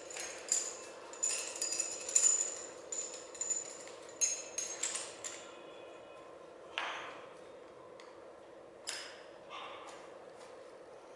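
Gym weights clinking: a quick run of sharp metallic clinks and knocks with short high rings for about five seconds, then two single knocks a couple of seconds apart, over a steady low hum.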